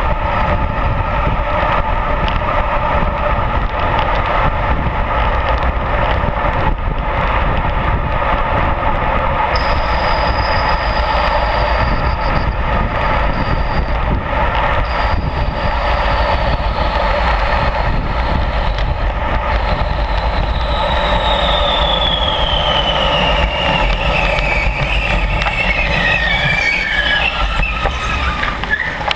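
Wind and road noise from a racing bicycle moving at speed in a road-race bunch, heard through an action camera. A thin whine glides steadily down in pitch over the last several seconds.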